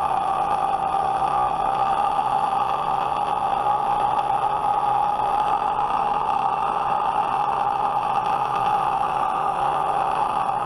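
A man's sustained fry scream built on light falsetto: a steady, raspy, buzzing distorted voice held on one note, a timbre likened to a dentist's saliva ejector.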